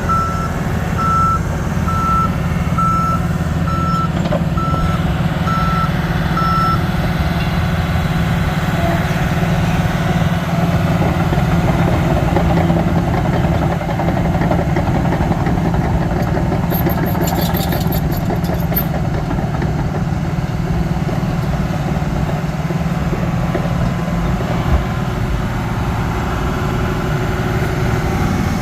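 2019 John Deere 750K bulldozer running steadily under work, its backup alarm beeping at an even pace for the first several seconds and then stopping as it quits reversing.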